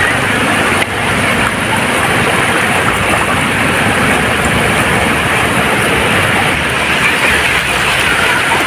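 Sea surf washing onto a beach: a steady, loud rush of breaking waves.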